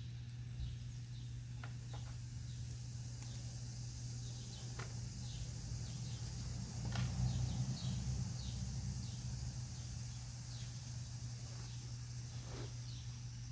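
Outdoor insect chorus with a steady high trill and short high chirps every second or so, over a steady low hum. A few faint clicks are heard, and a brief swell of low rumble comes about seven seconds in.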